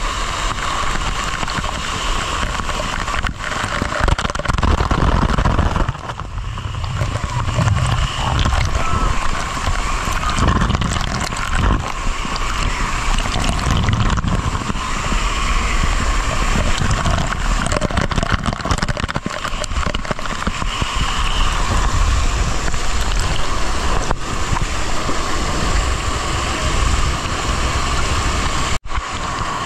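Water rushing and gurgling, a loud steady flow with low rumbles, broken once by a very short dropout near the end.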